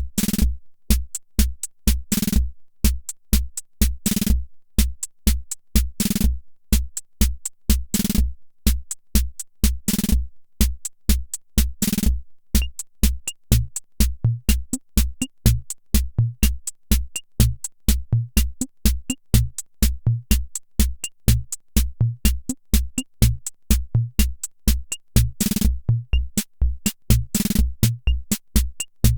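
Hammond Auto-Vari 64 analog rhythm machine playing a preset beat: steady low bass-drum thumps under sharp hi-hat and snare-like hits. About halfway through the pattern changes, the big accented hits dropping out and a small high tick joining in.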